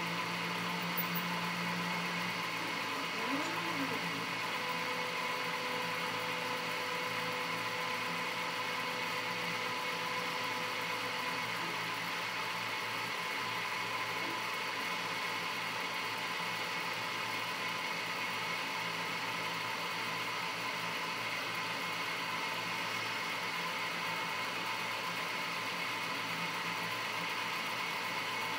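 Homemade CNC mini lathe running a turning program with no cutting tool or workpiece: its stepper motors whine steadily as they drive the carriage and cross slide along their lead screws. The pitch rises and falls briefly about three seconds in, then a higher note holds for several seconds.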